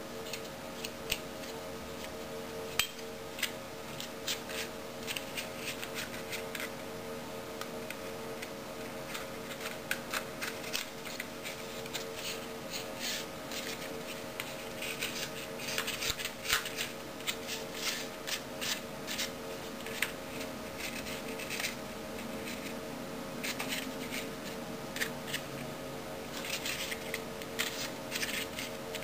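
Stiff sheet of birch bark crackling and rubbing in the hands as it is bent into a cylinder and its cut ends are hooked together: irregular short, crisp clicks and scrapes.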